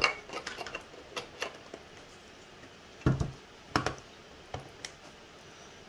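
3D-printed plastic printer parts being handled and fitted together: a sharp knock at the start, then scattered light clicks and taps, with a few louder knocks around three to four seconds in.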